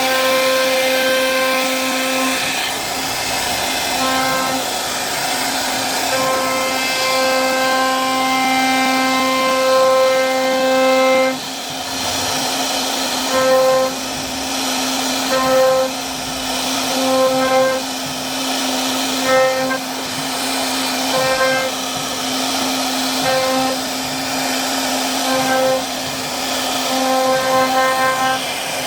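CNC router spindle whining at a steady pitch while its bit carves wood. In the second half the cutting sound swells and drops about every two seconds as the bit works back and forth through the carving passes.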